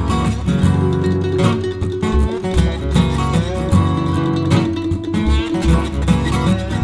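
Background music led by a strummed acoustic guitar, with a bass line and a steady beat.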